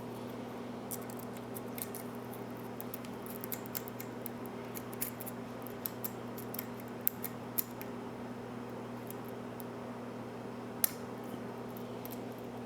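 Scattered small metallic clicks and scrapes of a lock pick working the pins inside a pin-tumbler mortise cylinder during single-pin picking, with one sharper click about 11 seconds in, over a steady low hum.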